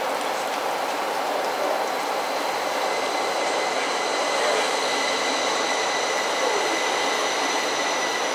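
Class 333 electric multiple unit running into the platform: steady rumble of wheels on rail under a set of high steady whines from its electric traction equipment, which grow stronger partway through as the train draws alongside.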